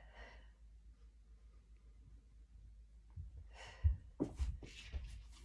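A person's heavy, breathy exhales during a band-resisted dead bug core exercise on a floor mat: one at the start and another more than three seconds in. A few dull thumps from the body's movement come just after the second exhale.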